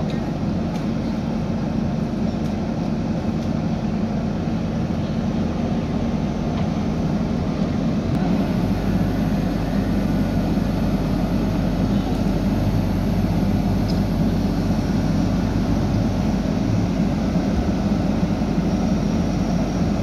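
JCB 3DX backhoe loader's diesel engine running steadily under work. About eight seconds in it gets a little louder and deeper, as with more load on the engine.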